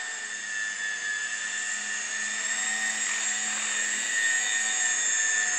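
JR Voyager E electric RC helicopter hovering: a steady whine from its electric motor and drive gears over the whir of the rotor blades.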